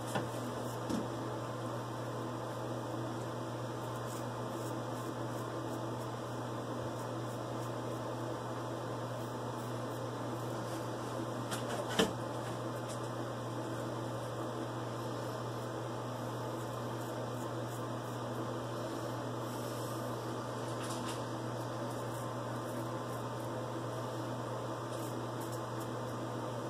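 Faint scrapes of a straight razor across lathered stubble over a steady low mechanical hum, with one sharp click about twelve seconds in.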